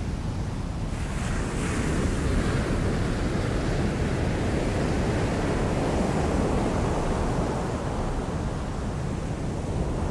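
Sea surf breaking and churning over rocks: a continuous rushing of water, swelling with a breaking wave about a second in.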